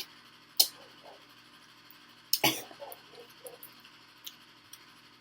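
A few sharp clicks and taps, loudest about half a second and two and a half seconds in, with short muffled mouth or throat noises from someone tasting food.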